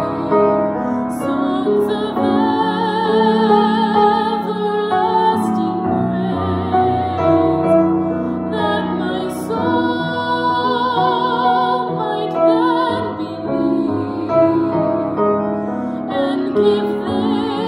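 A woman singing a slow, tender solo with vibrato on sustained notes, accompanied by piano.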